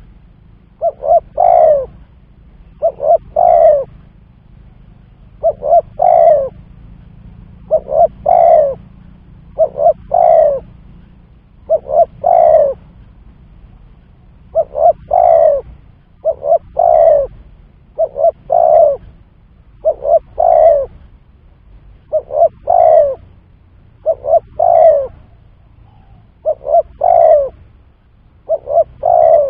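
Spotted dove (tekukur) cooing over and over, a phrase about every two seconds: two or three short coos, then a longer coo that falls in pitch.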